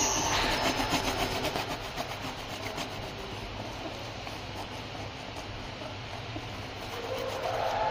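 A hand rubbing and sweeping across an engraved plastic sheet, brushing off cutting chips, over a steady low machine hum. The machine noise fades over the first couple of seconds, and a steady tone comes in near the end.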